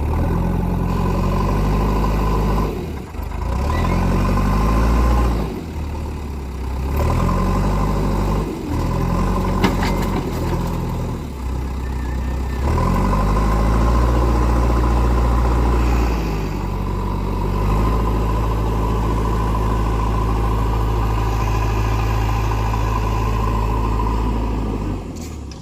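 Backhoe loader's diesel engine running under varying load, its pitch shifting up and down, with a few brief breaks in the sound.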